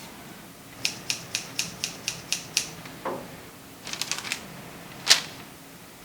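A run of sharp mechanical clacks, about four a second, then a duller knock, a quick flurry of clacks and one louder single clack near the end.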